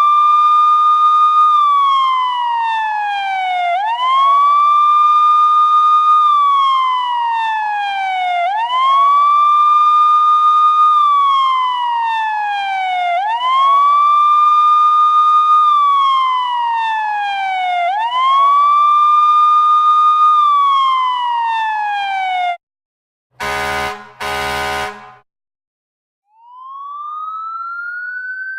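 Emergency-vehicle siren wailing: each cycle rises quickly, holds, then slides down, repeating about every four and a half seconds, five times. It stops, two short horn blasts follow, and near the end a second siren begins a slow rise.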